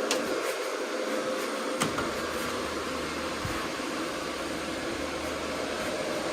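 Steady whir of cooling fans with a faint constant hum, and a few light clicks.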